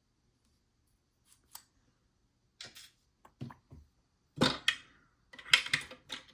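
Small metallic clicks and clatter of a disassembled ABUS 72/40 padlock's core and pin tumblers being handled and tipped out. The clicks are sparse at first and get busier and louder from about four seconds in.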